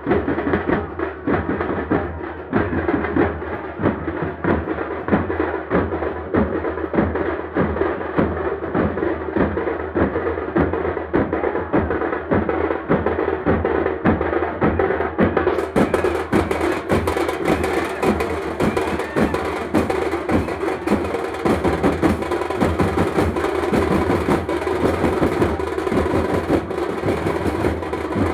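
Teenmaar drum music: a fast, steady, driving beat of hand-struck drums, growing brighter about halfway through.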